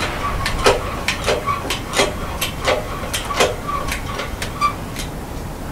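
Engine hoist being rolled with the engine hanging from it, giving repeated sharp clicks and short squeaks, roughly two a second.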